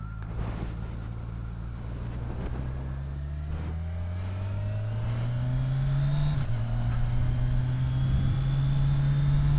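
Motorcycle engine pulling and speeding up: its note rises and grows louder, with a gear change about six and a half seconds in.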